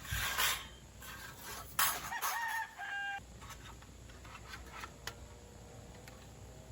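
A rooster crowing once, about two seconds in, a single pitched call lasting about a second. It comes after two short loud scratchy rustling noises, the first right at the start.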